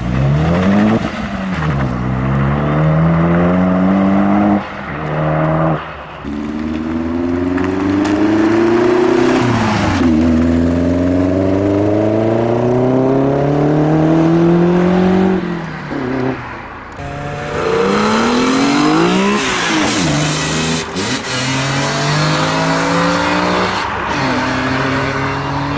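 Performance cars accelerating hard away one after another, among them a Renaultsport Clio and a Lotus Esprit. Each engine note climbs steadily in pitch and drops back at every upshift, about half a dozen times in all, with a harsher, hissier stretch of noise about three quarters of the way through.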